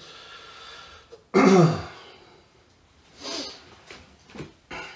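A man's short non-speech vocal sound about a second and a half in, falling in pitch, then a few short, quieter handling noises.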